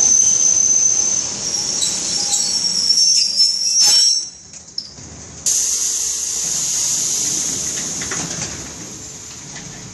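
EN57 electric multiple unit braking to a stop, its brakes squealing with thin high whistling tones. About five and a half seconds in, a sudden hiss of released compressed air starts and slowly fades.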